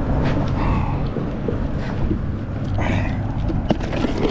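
Wind buffeting the microphone over a steady low rumble, with faint voices and one sharp click near the end.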